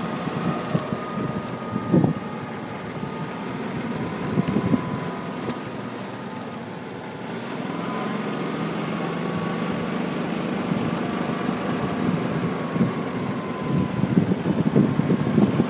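A motor running steadily, a low hum with a faint whine that drifts slowly in pitch, and rough rumbling and knocks now and then.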